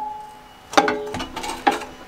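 Three sharp metal-on-metal clinks, each leaving a short ringing tone, from tools or parts knocking against the old mower's steel body as it is worked on.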